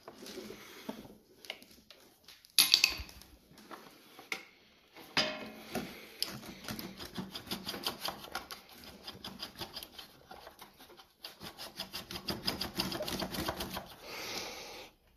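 Quick runs of sharp, evenly spaced clicking, like a ratchet wrench being worked, with a few knocks and scrapes of tools being handled at a lawnmower's spark plug.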